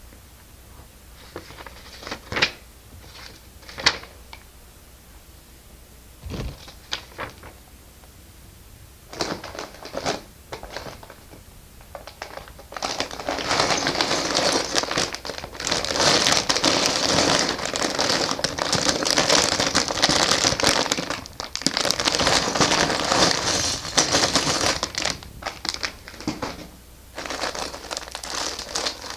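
Plastic parts bag crinkling as it is handled and rummaged through, loud and continuous for about a dozen seconds in the second half. A few separate sharp clicks come before it.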